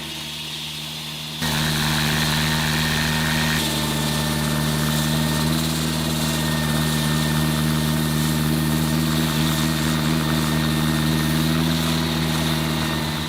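72-horsepower gas-powered walk-behind slab saw running steadily for asphalt and concrete cutting. It gets markedly louder about a second and a half in, then holds steady.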